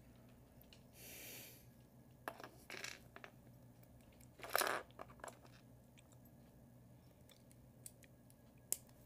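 Loose plastic Lego bricks clicking and rattling as they are picked out of a pile on a wooden floor and pressed together, with a louder clatter of pieces about halfway through and a few sharp clicks near the end.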